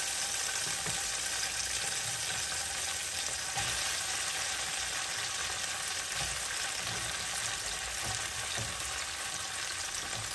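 Hot oil sizzling steadily in a nonstick frying pan with garlic and fermented black beans as slices of bitter melon (ampalaya) are dropped in, with a few faint soft knocks.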